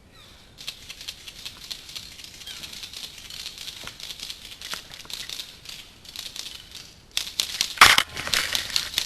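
Rustling and crackling from a player on the move, made of many small ticks. It grows louder about seven seconds in, with a sharp knock soon after.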